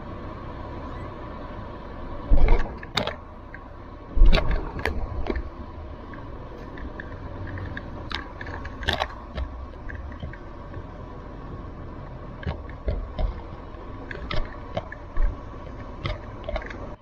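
Land Rover Defender driving, a steady engine and road drone with a faint steady whine. Loud sharp knocks and rattles come about two to three seconds in, again around four to five seconds, and near nine seconds, with smaller ones later, as the vehicle jolts over a rough dirt track.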